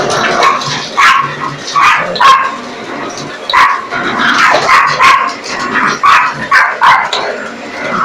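Miniature pinschers barking at a vacuum cleaner: a dozen or so short, sharp barks in irregular quick succession.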